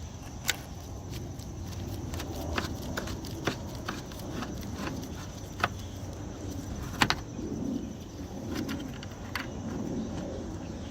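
Scattered sharp clicks and light scrapes of a screwdriver working on a car's plastic tail light housing, a few seconds apart with a double click around the middle, over steady faint insect chirring.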